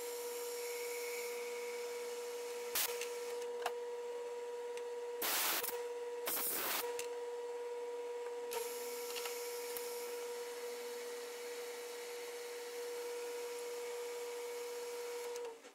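Metal lathe spindle running with a steady hum while a small brass part spins in its collet. There are two short bursts of scraping noise about five and six seconds in and a few sharp clicks, then a hand file is drawn over the turning brass. The hum cuts off near the end.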